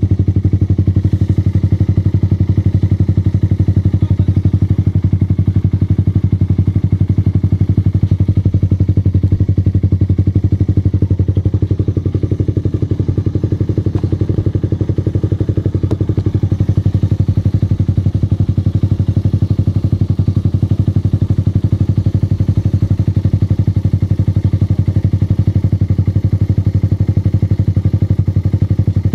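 Suzuki Raider R150's single-cylinder four-stroke engine running steadily through an aftermarket LeoVince muffler: a loud, even exhaust note with no revving.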